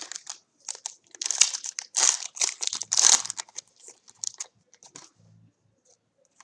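Trading-card pack wrapper crinkling and tearing as it is opened, a dense run of crackly rustles that is loudest in the middle and thins to faint rustling of the cards near the end.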